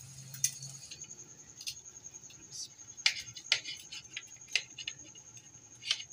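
Faint sizzling of bread slices frying in oil for the first second, then a knife cutting through crisp-edged fried French toast on a plate: a series of sharp crunches and clicks as the blade breaks the crust and meets the plate.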